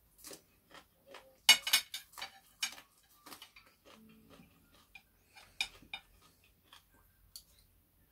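Cutlery clinking and scraping on plates while eating, a scatter of short sharp clicks, the loudest cluster about one and a half seconds in.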